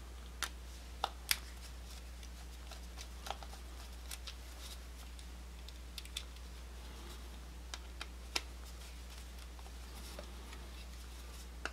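Scattered small clicks and taps of metal and plastic as wire is hooked onto an electrical receptacle's screw terminal and worked with a screwdriver, about a dozen in all, the loudest a little over a second in. A faint steady low hum lies underneath.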